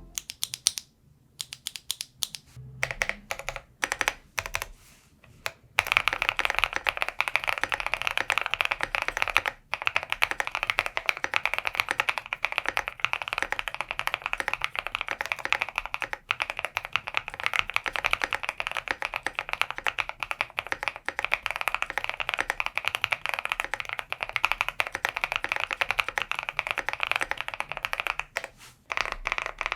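Typing on an Osume Play75 mechanical keyboard in its split o-ring mount with all foams installed. A few scattered keystrokes come first. Steady fast typing starts about six seconds in and pauses briefly near the end.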